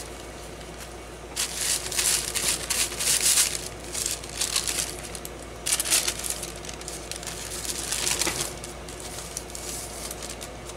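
Sheets of waxed deli paper, made stiff and crunchy by dried paint and ink, rustling and crinkling as they are handled and shuffled, in several bursts.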